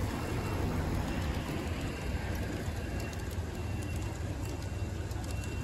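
Large-scale model freight train running past on garden railway track: a steady low rumble of wheels on the rails, with light clicking over the rail joints from about halfway through.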